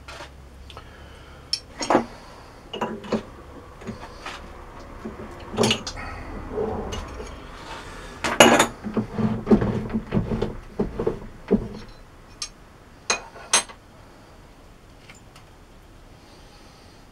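Metal parts and tools clinking and knocking as they are handled on a workbench, with a busier run of clatter about halfway through.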